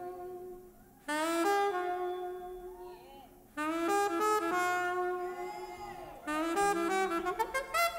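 Saxophone playing solo phrases: three phrases beginning about a second, three and a half seconds and six seconds in, each opening on a held note that fades, the last breaking into a quick run of notes.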